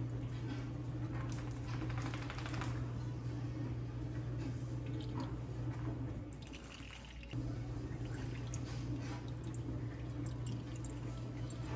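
Liquid trickling and dripping into a bowl as pumpkin purée is wrung out hard in a cotton kitchen towel to press out its excess water. A steady low hum runs underneath and drops out for about a second midway.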